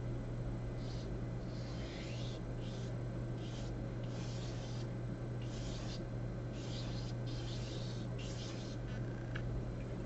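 Paintbrush working gouache paint in about a dozen short, scratchy strokes, irregular, one every half second to a second. A steady low hum runs underneath.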